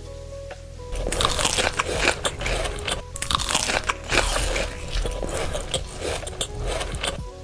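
Crunching bites and chewing of crisp food close to the microphone, starting about a second in and stopping just before the end, over background music.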